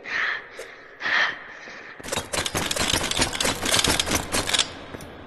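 A rapid clatter of sharp clicks lasting about two and a half seconds, starting about two seconds in, after two short, softer sounds.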